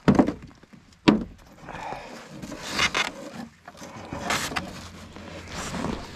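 Two sharp knocks about a second apart, then footsteps on very cold, hard-packed snow.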